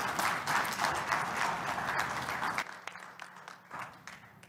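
Congregation applauding. The clapping stops fairly suddenly about two and a half seconds in, leaving a few scattered claps.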